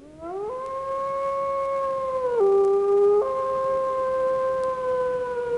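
Wolf howling: one long howl that rises at the start and then holds steady. About two and a half seconds in it drops lower for under a second before returning to its held pitch.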